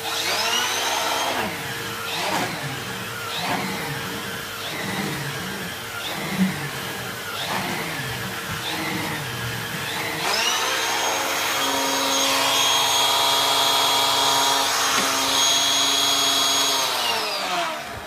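Numatic Henry HVR200-12 vacuum cleaner on its high setting, driving an air-driven Airo turbo brush over carpet. Its whine rises at the start, swings up and down in pitch in waves for several seconds, then holds a steady higher whine before winding down near the end.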